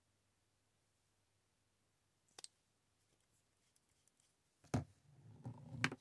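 Near silence, then a few sharp clicks and light ticks of small makeup tools and containers being picked up and set down. The loudest clicks come near the end, one with a short rustle.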